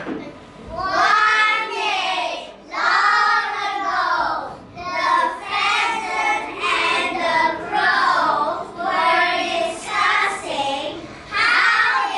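A small group of children singing together in unison, in short phrases of about a second each.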